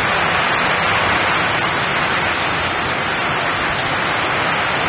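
Heavy rain pouring onto a wet road: a steady, even hiss of drops splashing on the surface and standing water.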